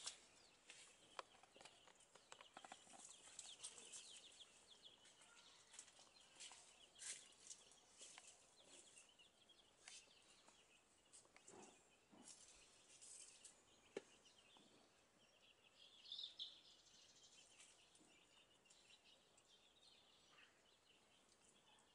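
Near silence: faint outdoor ambience with scattered soft clicks and rustles, and a faint high chirp about sixteen seconds in.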